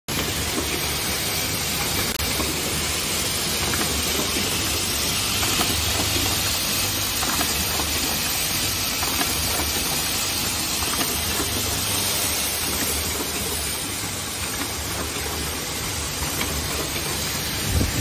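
Automatic hinge assembly machine running: a steady hiss of compressed air from its pneumatic cylinders over the low hum of its vibratory bowl feeders, with light scattered clicks of parts and one louder knock near the end.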